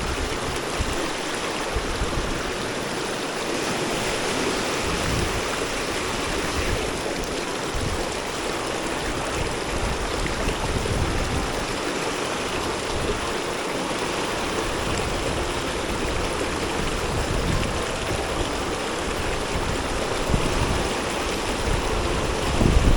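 Steady rush of moving water, with low wind rumble on the microphone coming and going.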